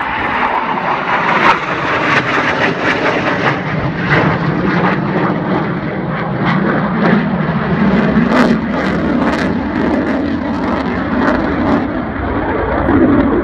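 Jet noise from a Panavia Tornado's twin RB199 afterburning turbofans as the jet flies past low overhead. It is a loud, steady rush of noise with many sharp crackles through the middle.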